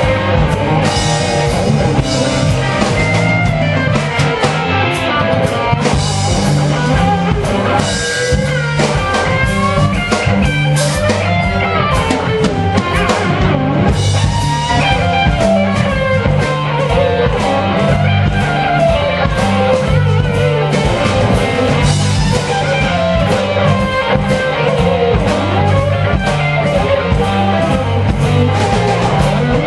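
Live blues-rock band playing: an electric guitar carries a lead line with bent, gliding notes over bass and a drum kit.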